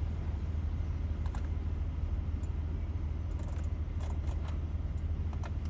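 Steady low hum of the Audi Q7 idling, with a scattering of light clicks and taps from fingers working the head unit's touchscreen.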